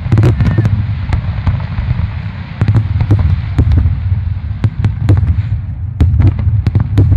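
Aerial fireworks display: many sharp shell bursts and crackling bangs in quick succession over a continuous low rumble, with a brief thinning of the bangs about two seconds in.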